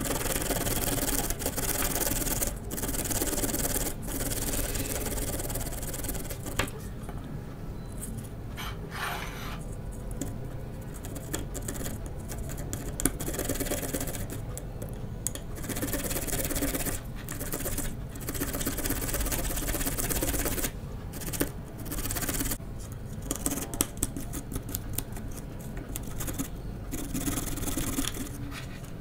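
Garlic clove grated on a handheld plastic grater over a ceramic plate: repeated back-and-forth scraping strokes with short pauses between runs.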